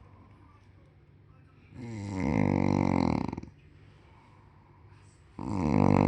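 Snoring: two loud snores, each lasting about a second and a half, one starting about two seconds in and the next near the end, with quieter breathing between.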